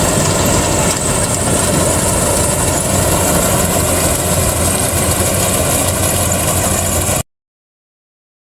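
Rice combine harvester running steadily at a loud, even level, its engine and machinery droning. It cuts off abruptly to silence about seven seconds in.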